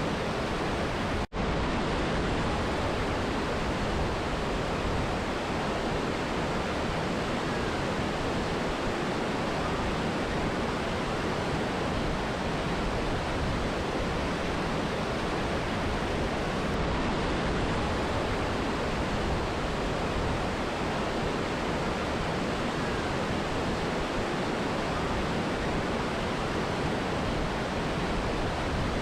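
Mountain river and waterfall rushing, a steady, even roar of water, broken by an instant's dropout a little over a second in.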